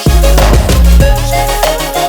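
Background pop music with a heavy bass and a steady beat, no singing.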